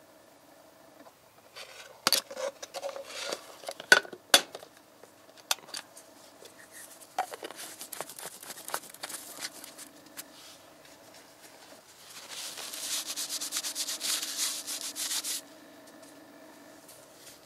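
Plastic oil bottle and jug being handled: scattered knocks and clicks, then about three seconds of rapid scraping clicks, over a faint steady hum.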